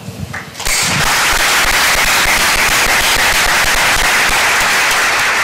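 Audience applauding, a dense steady clapping that starts abruptly about a second in.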